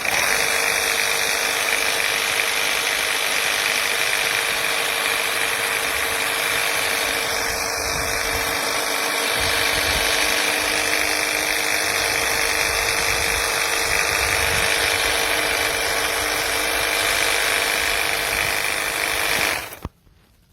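Cordless battery pressure washer running steadily, its pump motor making a constant hum and whine over the hiss of the spray, then cutting off abruptly near the end.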